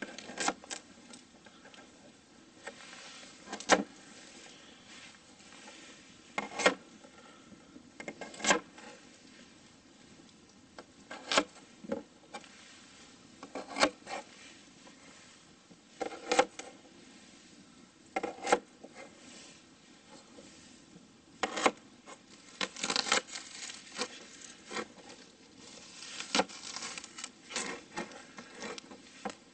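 Kitchen knife slicing through small potatoes and knocking on a cutting board, one cut every couple of seconds. Near the end come quicker runs of chopping as green onions are cut.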